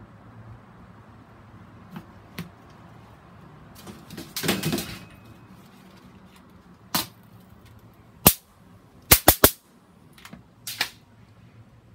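Electric mosquito racket zapping insects with sharp cracks: a loud one about eight seconds in, three more in quick succession about a second later, and a smaller double crack near the end. Earlier, a short burst of rustling and handling noise.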